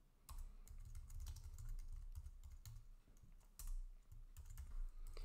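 Typing on a computer keyboard: a fast, uneven run of key clicks with a few short pauses.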